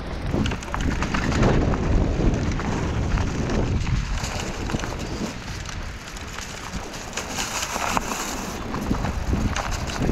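Mountain bike descending a dirt woodland trail: tyres rolling and skidding over the ground with frequent knocks and rattles, and wind buffeting the microphone.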